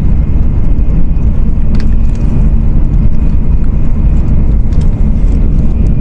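Nozomi Shinkansen bullet train running, heard inside the passenger cabin as a loud, steady low rumble.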